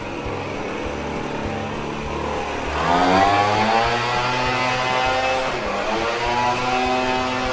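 Handheld leaf blower running, its whine sagging and then rising sharply as it speeds up about three seconds in, with a brief dip and recovery near the end.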